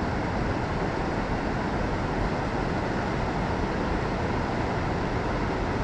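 River current rushing steadily over a rough, broken riffle.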